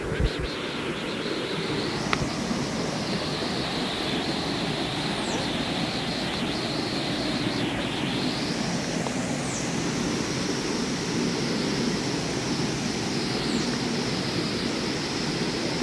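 Steady rush of river water pouring over the rocks of a natural rock water slide.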